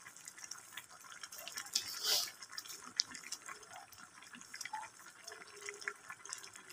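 Pot of instant noodle soup at a rolling boil, bubbling with a steady patter of small pops. A brief louder burst of noise comes about two seconds in.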